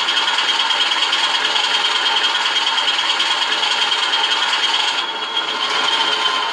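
Alco 539T six-cylinder diesel switcher engine sound played by an ESU LokSound v4.0 XL decoder through a small loudspeaker, running steadily with a dense rattle and a thin high whine. The level dips briefly about five seconds in.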